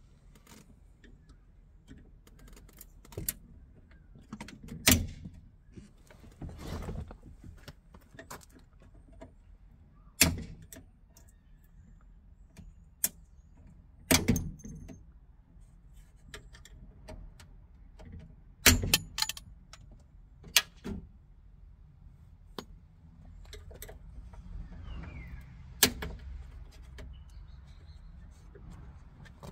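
Sharp metallic clicks and taps at irregular intervals, about ten in all, as old window-frame retaining clips are prised off the Fiat 126's steel door frame with a hand tool.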